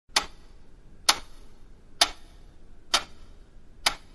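Clock ticking: five sharp, even ticks about one a second.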